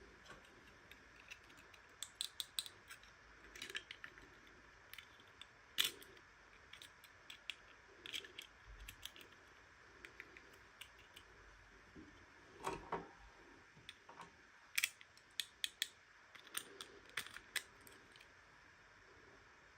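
Light clicks and taps of small toy pieces and packaging being handled, scattered irregularly and sometimes coming in quick clusters of several.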